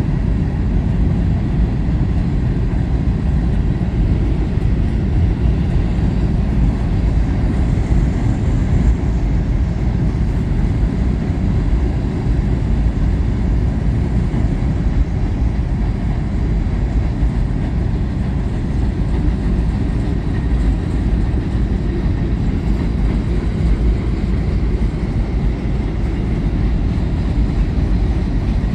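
Long freight train rolling past, a steady loud rumble of wheels on rail.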